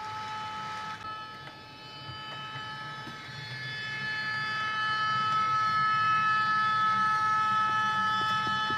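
H0-scale model freight train, hauled by an NMJ EL14 electric locomotive, rolling along the layout's track: a low rumble that grows louder from about three seconds in, with a few light clicks near the end, over a steady high-pitched whine.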